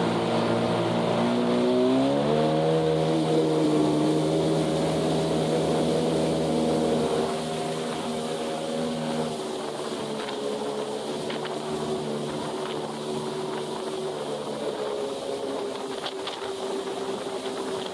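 Jet ski engine revving up about two seconds in, then running steadily at cruising speed, easing off a little about seven seconds in, with the rush of wind and water.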